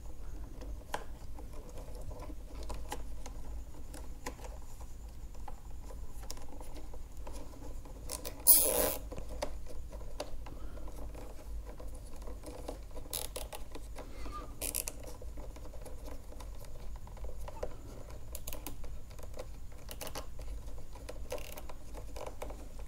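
Nylon cable ties being threaded and handled among wires: faint scratching and small plastic clicks, with one louder half-second rasp about eight and a half seconds in.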